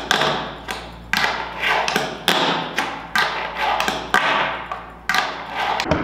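Fingerboard with a Berlinwood deck and Blackriver trucks and wheels being flipped and landing on a tabletop again and again: a quick, irregular run of sharp clacks, about ten in six seconds.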